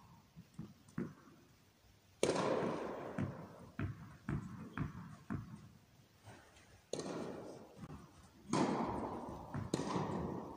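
Tennis balls bouncing and scattered thuds in an indoor tennis hall, with three sudden bursts of noise that each fade over a second or two.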